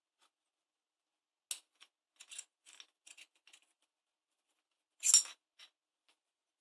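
A string of small clicks and clacks as a tripod quick-release plate is handled and fitted to the binoculars' tripod adapter, with one louder clack about five seconds in.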